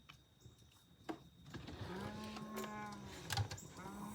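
A long, low animal call held steady for over a second, then a shorter one near the end, with a few sharp knocks between them.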